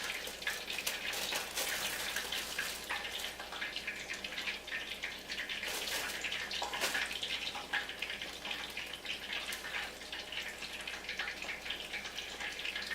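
Hot oil sizzling and crackling steadily in a frying pan, a dense patter of small pops.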